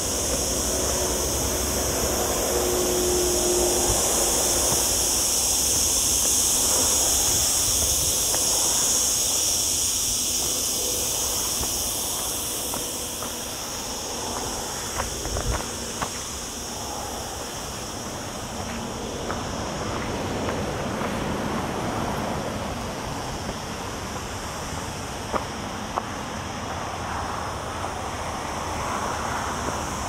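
Cicadas buzzing in a steady, high chorus, loudest in the first half and fading about halfway through. A low rumble of wind on the camera mic or distant traffic runs underneath, with a few light footstep crunches on the gravel track.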